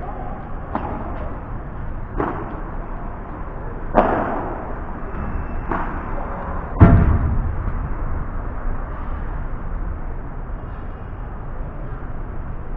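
Padel rally: the ball is struck and bounces in five sharp hits about a second and a half apart, the loudest and deepest about seven seconds in.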